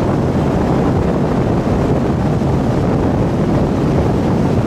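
Motorboat running steadily at towing speed, its engine drone mixed with rushing water from the wake and wind buffeting the microphone.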